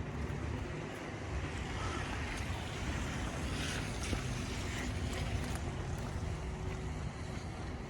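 Steady low rumble of wind buffeting the microphone, with a few light clicks.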